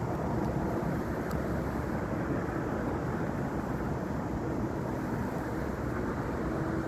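Steady, low rumbling wind noise with no breaks. A faint steady hum comes in near the end.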